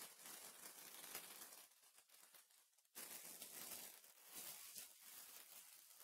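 Faint crinkling and tearing of trading-card packaging being handled and opened, in two spells; the second starts about three seconds in.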